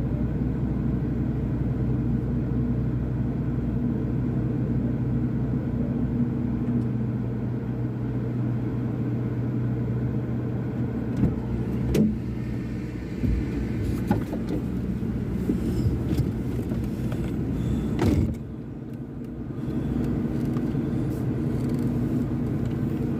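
Doosan DX210W wheeled excavator's diesel engine running steadily, with a few sharp knocks, one about twelve seconds in and another near eighteen seconds, after which the engine sound briefly drops for about a second before returning.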